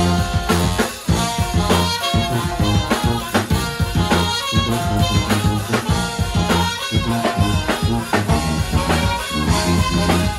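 Brass band playing live: trombones, saxophones and a bell-front brass horn play over a sousaphone bass line and a drum kit keeping a steady beat.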